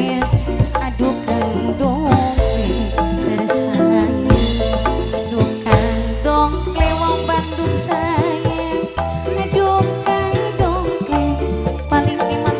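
Loud live dangdut band music playing an instrumental passage: a wavering melody line over a heavy bass and percussion beat.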